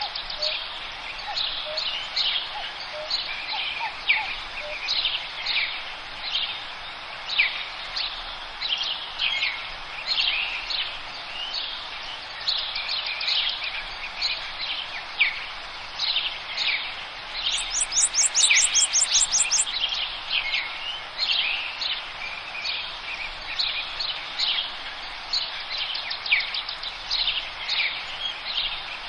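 A forest bird chorus: many small birds chirping and singing at once over a steady background hiss, with one bird giving a fast rapid trill about two-thirds of the way in.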